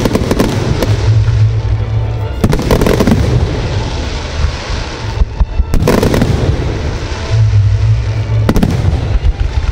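Fireworks display with aerial shells bursting and dense crackling throughout. Sharper loud bangs come about every three seconds, three times. Music plays underneath.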